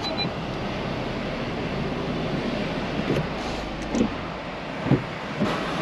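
Car cabin noise while driving: a steady hum of engine and tyres, with a few short soft knocks in the second half.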